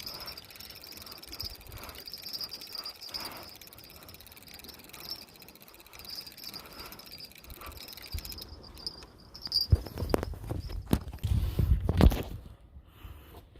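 Insects chirping steadily in a fast high pulse, which stops about eight seconds in. Then comes a run of loud knocks and bumps close to the microphone for a couple of seconds near the end.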